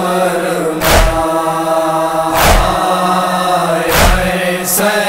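Men's voices chanting a noha lament in long held notes, with a loud chest-beating strike (matam) about every one and a half seconds, three times.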